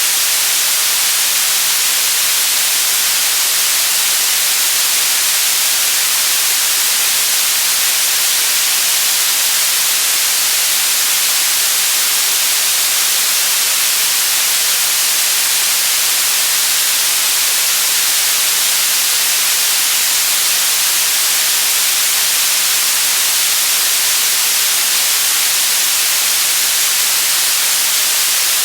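Steady white noise: an even, loud hiss with most of its weight in the treble, unchanging throughout.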